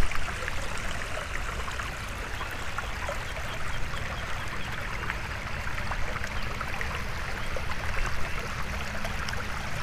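Steady rush of water flowing over a concrete pond spillway.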